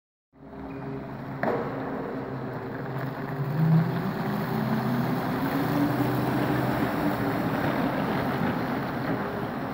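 Zamboni 552 ice resurfacer running as it drives across the ice: a steady motor hum, with a whine that rises in pitch through the middle, and one short knock about a second and a half in.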